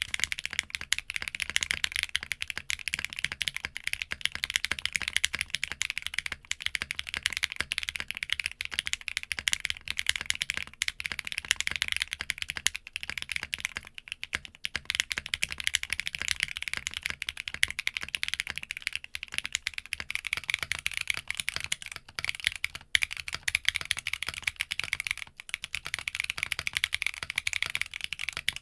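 Continuous typing on an Arc60 60% mechanical keyboard, a rapid stream of key clacks. For about the first half it has a POM plate and Sarokeys Strawberry Wine switches, then a polypropylene plate with the same switches, and near the end an aluminium plate with lubed Zaku II switches.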